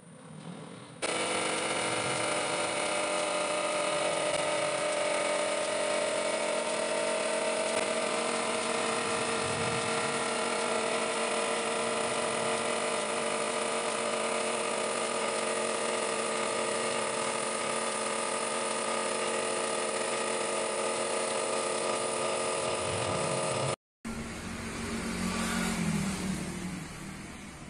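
A machine running steadily: a constant mechanical hum with several fixed whining tones that does not change. It starts abruptly about a second in and cuts off near the end, where a lower, wavering hum takes over.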